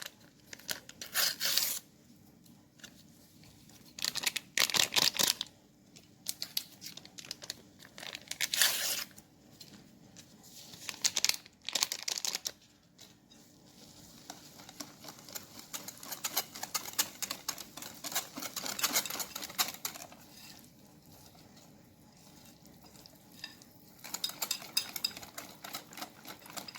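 Paper sachets of baking powder being torn open and shaken out, with crinkling paper in the first half. From about halfway, batter being beaten in a bowl, with a fast, even clicking.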